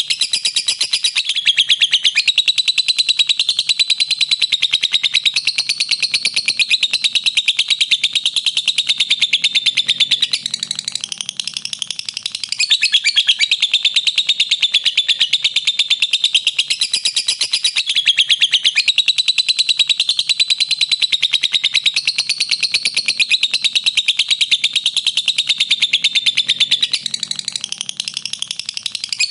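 Pet lovebirds chirping: a continuous, rapid stream of high-pitched chirps that eases off briefly about ten seconds in and again near the end.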